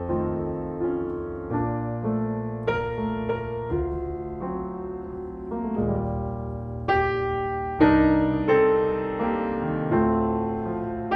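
Piano playing slow chords, each struck chord ringing and fading before the next.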